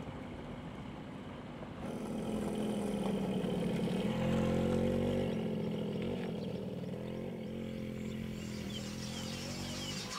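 Small motorcycle engine running with a steady note that comes in about two seconds in, louder around the middle and then easing a little.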